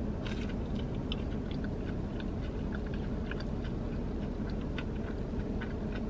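A person chewing a mouthful of breaded chicken strip dipped in white gravy: a string of small, irregular mouth clicks and crackles.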